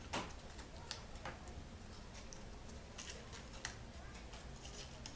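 Faint, irregular crackles and soft clicks of small pieces of paper being folded and creased by hand, over a low steady hum.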